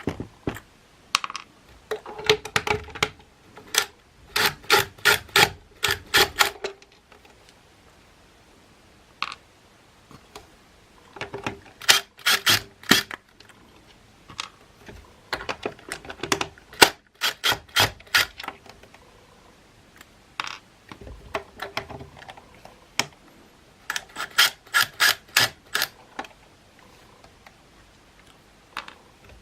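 Work by hand on a Makita CL107FD cordless vacuum during disassembly: runs of rapid, evenly spaced sharp clicks, each run lasting a few seconds, four times, with pauses between.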